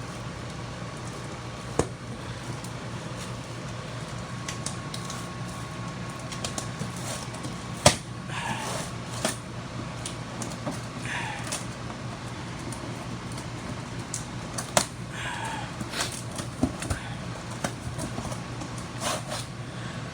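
Box of new brake parts being opened and unpacked by hand: scattered sharp clicks and knocks and a few short rustles of cardboard and packaging, the sharpest knock about 8 seconds in, over a steady low hum.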